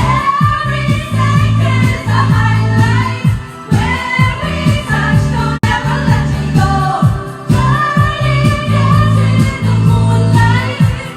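Background pop song with a singer's voice over a steady beat and bass.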